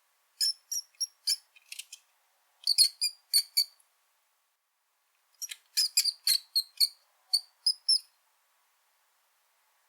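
Brown rat squeaking: three bouts of short, sharp, high-pitched squeaks, about a second and a half each, with silent gaps between them.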